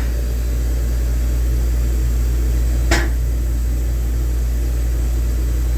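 Star ATG-6AC CNC tool and cutter grinder powered up and running with a steady low hum while its Y-axis is jogged up and down, with a single sharp click about three seconds in.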